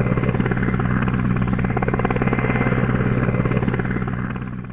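Helicopter in flight, heard from inside the cabin: a steady engine drone with a fast rotor beat, fading out near the end.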